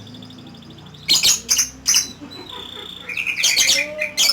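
Lovebird calling. A few loud, shrill chirps come a little over a second in. From about three seconds in, a fast run of rapid repeated notes follows: the chattering trill called 'ngekek'.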